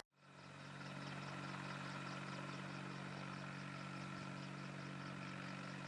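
An engine running steadily and faintly, fading in at the start: a hum of a few steady low tones with a faint, rapid, even flutter higher up.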